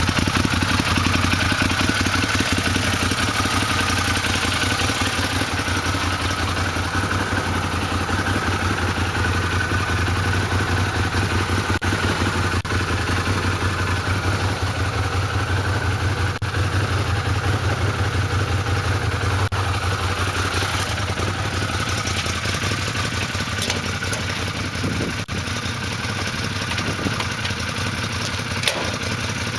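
Arctic Cat Wildcat 1000X side-by-side's V-twin engine idling steadily.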